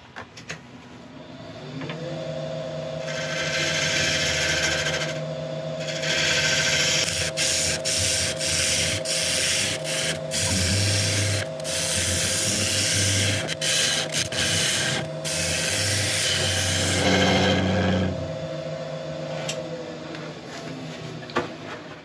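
A Record Power Regent wood lathe spins up about two seconds in and runs with a steady motor whine, while a bowl gouge held on its side cuts the end grain of monkey puzzle wood in long hissing passes with short breaks. The gouge is slicing the fibres rather than scraping them, the cut that leaves a smooth finish with no tear-out. The lathe winds down near the end.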